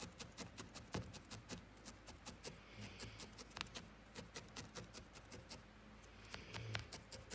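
Felting needle stabbing repeatedly into wool on a wool felting pad: a rapid run of faint ticks, about five a second.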